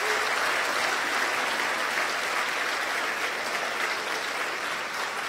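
Audience applauding in a lecture hall, a dense, steady clapping that begins to ease off near the end.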